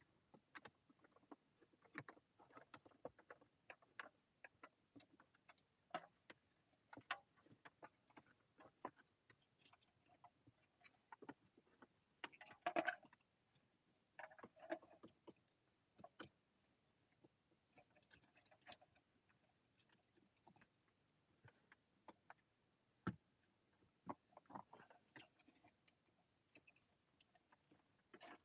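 Faint handling noise from car wiring harness and connectors being routed and positioned: sporadic small clicks and brief rustles with near quiet between them, a short louder rustle about halfway through and a sharp click a little later.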